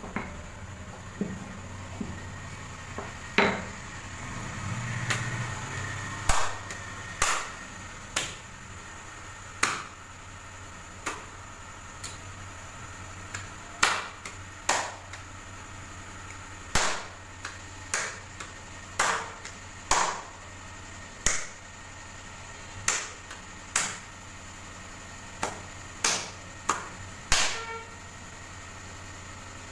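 Soft bhatura dough slapped between the palms to stretch it thin, a sharp slap about once a second, some in quick pairs. Before that, a wooden rolling pin rolling the dough on the worktop with a low rumble and a few knocks.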